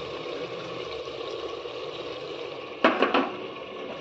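Onion and green masala gravy sizzling steadily in oil and butter in a pan, with a brief clatter of stirring about three seconds in.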